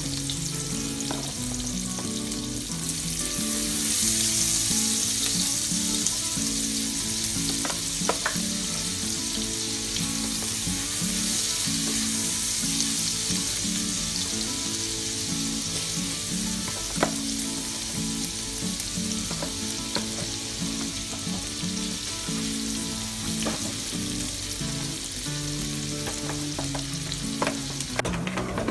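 Chopped onion, garlic and ginger sizzling steadily as they are sautéed in butter in a pan, with a few sharp clicks as they are stirred.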